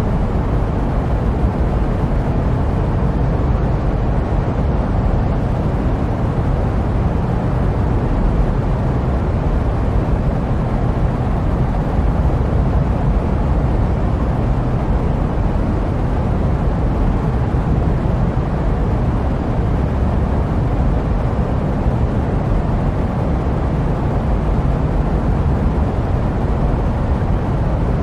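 Jet aircraft noise used as white noise: a steady, unbroken hiss that is deepest and strongest in the low end, with little high-pitched content.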